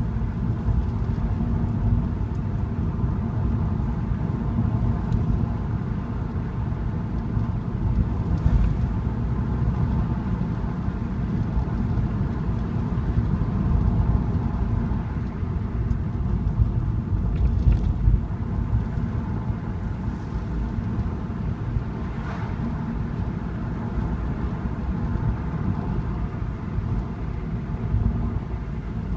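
A car driving at a steady pace, heard from inside the cabin: a continuous low rumble of tyres on the road and the engine.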